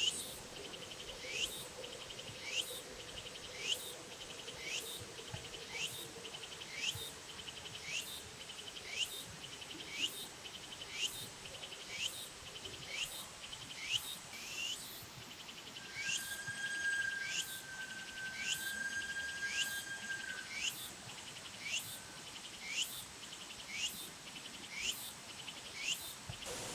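An insect calling in a steady rhythm, a short rising note about once a second over a continuous buzz. About two thirds of the way in, a steady high tone joins it for roughly four seconds.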